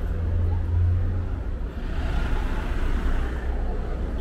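City street traffic: a steady low rumble of passing cars and buses, swelling briefly about two seconds in.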